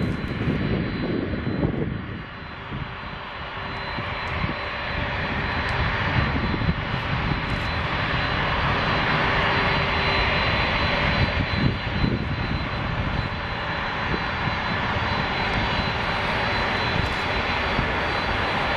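Boeing 747-400ER's four General Electric CF6-80C2 turbofans powering up for takeoff: a steady jet noise that grows louder over the first several seconds and then holds at full strength, with a thin high whine running above it.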